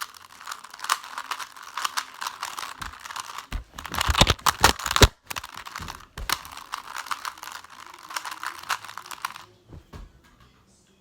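Rubik's cube being scrambled: rapid plastic clicking and clacking as the layers are twisted, with a louder cluster of knocks about four to five seconds in. The clicking stops shortly before the end.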